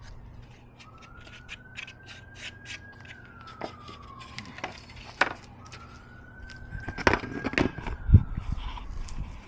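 A siren wailing: a single tone slowly rising and then falling in pitch, twice, about five seconds per cycle. Beneath it come scattered clicks and knocks, with a few heavier thumps near the end.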